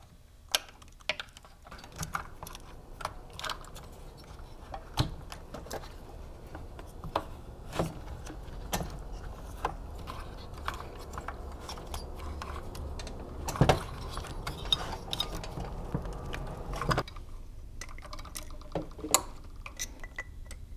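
Scattered light clicks and taps of small metal and plastic parts as a carburetor is fitted by hand onto a chainsaw engine, with a denser cluster of knocks about two-thirds of the way through. A low steady hum sits underneath for most of the time.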